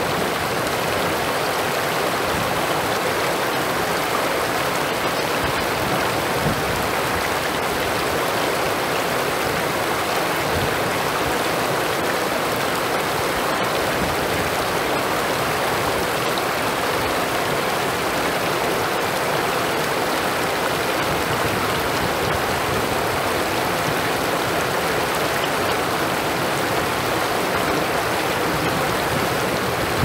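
Shallow stream rushing over rocks and around stone stepping stones: a steady rush of water.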